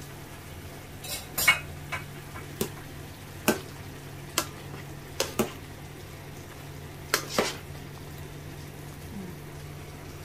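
Cooking utensil stirring a pot of boiling soup, knocking against the pot in about ten sharp, irregularly spaced clinks, over a steady low hum.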